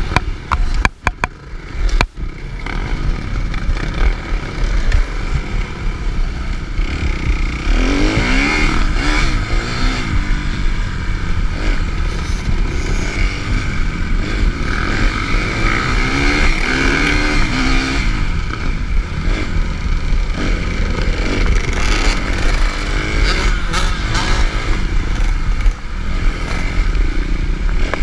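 2011 Suzuki RM-Z250's four-stroke single-cylinder motocross engine running hard, revving up and falling back as the bike is ridden over an off-road course, with wind rush. A few sharp knocks come about a second in.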